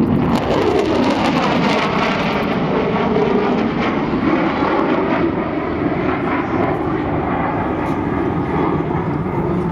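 B-1B Lancer bomber making a full-power, wings-swept flyby on afterburner, its four afterburning turbofans giving a loud, steady jet roar whose tone sweeps down and back up as it passes.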